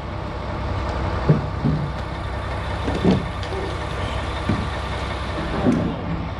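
Engine idling steadily, likely a truck's, with a few short louder knocks or scrapes over it.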